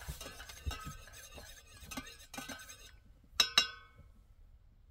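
Spoon stirring and clinking in a stainless steel mug, light irregular clicks, then two sharp ringing clinks a little past halfway.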